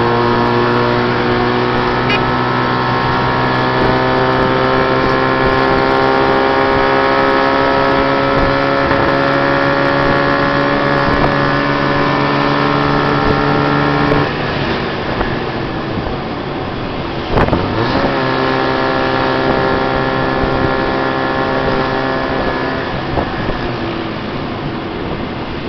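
Tuk tuk's small engine pulling steadily, its note slowly rising as it gathers speed, then easing off about halfway through. A sharp knock comes soon after, then the engine pulls again briefly before easing off near the end, over road noise from surrounding traffic.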